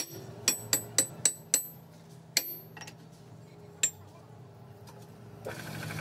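Sharp metal-on-metal clinks with a high ringing tone, five in quick succession about a quarter second apart, then two more spaced out, as steel shaft parts are knocked together on a workshop press. Near the end a steady buzzing hum starts.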